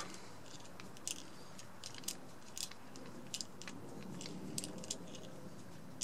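Faint, scattered small clicks and light scraping from fingers handling a Shimano Tourney rear derailleur as its cable clamp bolt and washer are taken off by hand.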